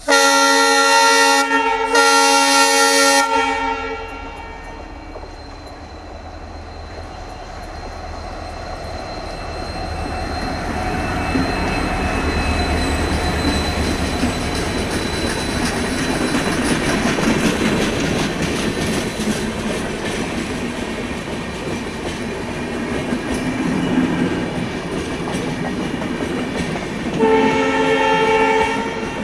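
WDG4 diesel locomotive's twin-tone horn sounding two blasts of about a second and a half each, followed by the train's running noise and wheel clatter building up and carrying on. A third horn blast sounds near the end.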